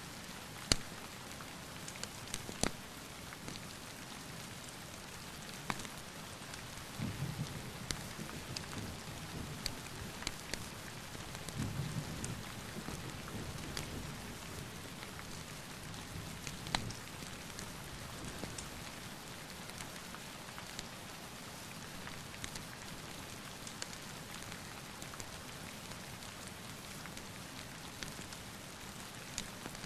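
Steady rain with two low rumbles of distant thunder about a quarter and two fifths of the way in. A few sharp clicks stand out over the rain, the loudest about a second in.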